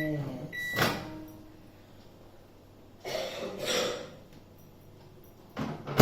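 Microwave oven's end-of-cycle beep, cut short by a sharp click of the door being opened. About three seconds in comes a brief scraping, and at the very end a loud sharp knock of the microwave door being shut.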